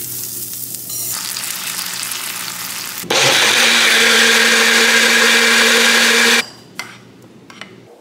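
Butter sizzling in a stainless steel frying pan for about three seconds. Then a Magic Bullet blender runs loudly and steadily for about three seconds, blending a fruit smoothie, and stops abruptly.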